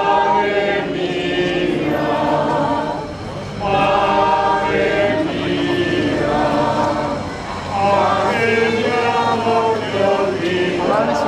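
A group of voices, choir-like, singing a slow sacred song in long phrases, each lasting three to four seconds with a short break between them.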